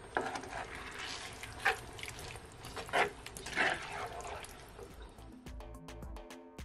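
Saucy chicken and vegetable stir-fry being stirred in a cast-iron skillet with a plastic spatula: a wet sizzling hiss with a few sharper scrapes and clacks. Light background music comes in about five seconds in.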